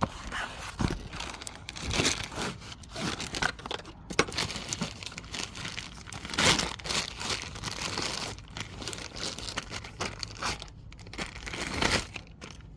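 Plastic packaging crinkling and tearing as a new inner tie rod is unwrapped: a run of irregular rustles, louder around two, six and a half, and twelve seconds in.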